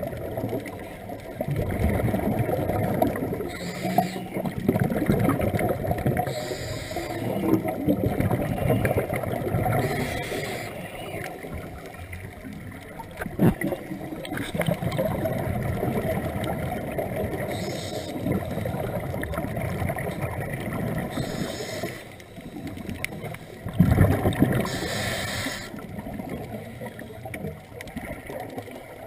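Scuba regulator breathing heard underwater through a camera housing: a brief hiss with each inhale every few seconds, between stretches of bubbling from exhaled air. A few knocks, the loudest near the end.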